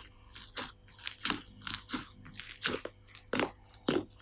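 Foaming slime being stretched, folded and pressed by hand, making a string of short sharp pops and clicks as air is worked into it, about two a second, the loudest near the end.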